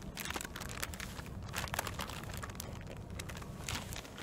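Plastic groundbait bag crinkling and rustling as it is handled, a run of small irregular crackles, over a low steady rumble.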